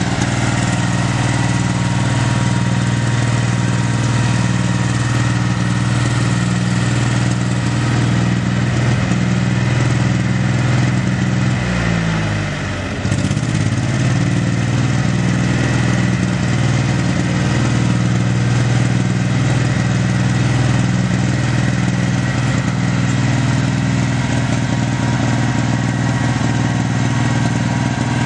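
John Deere 1020 tractor's 2.2 L three-cylinder gas engine running steadily, likely at idle. About twelve seconds in the engine speed briefly sags, then picks back up to the same even running.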